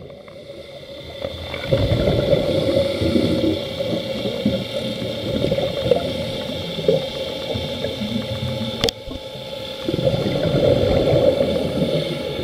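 Underwater sound from a diving camera: the gurgling rush of a scuba diver's exhaled bubbles over a steady hum, swelling twice. It breaks off suddenly about nine seconds in.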